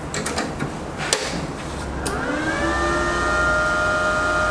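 A few sharp clicks in the first second, then a motor in the MIG 200X welding machine spinning up: a whine that rises about two seconds in and levels off into a steady hum.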